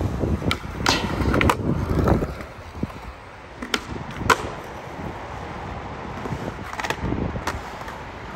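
Skateboard wheels rolling on smooth concrete, broken by several sharp clacks of the board popping and landing tricks; the loudest clack comes a little past the middle.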